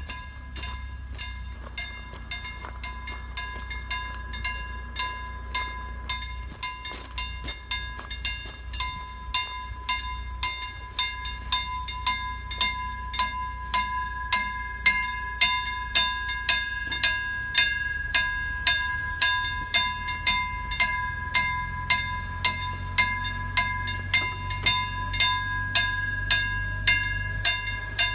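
KLD-43 mechanical level-crossing bells ringing with a steady run of strikes, about one and a half a second, which grow louder. The ringing is the crossing's warning that a train is passing. A low rumble runs underneath.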